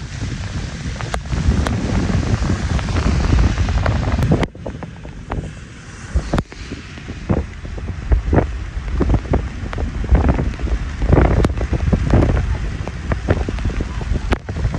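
Wind buffeting the microphone of a car driving through a rainstorm, with the hiss of tyres on the wet road; the rush drops away for about two seconds partway through, then returns.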